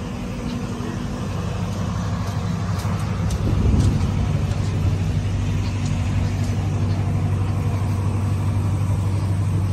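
An engine running steadily with a low hum that grows louder over the first four seconds, then holds steady.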